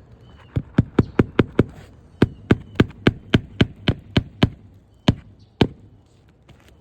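Hammer blows nailing down a replacement asphalt roof shingle: a run of about six quick strikes, a short pause, about nine more at roughly four a second, then two single blows.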